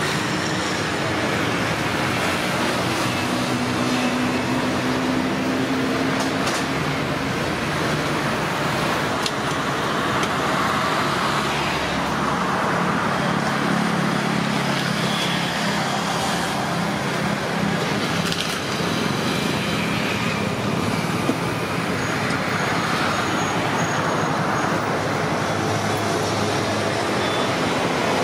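Steady road traffic noise, with the low hum of engines swelling and fading as vehicles pass several times.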